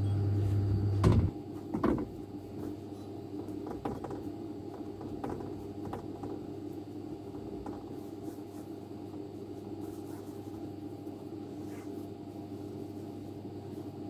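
Steady hum of electric bakery equipment. A louder low drone cuts off about a second in, with two sharp knocks close together, and faint clicks and handling noises follow.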